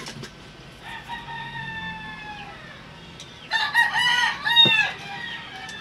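Rooster crowing twice: a fainter, long held crow starting about a second in, then a louder, broken crow with a rising and falling pitch about three and a half seconds in.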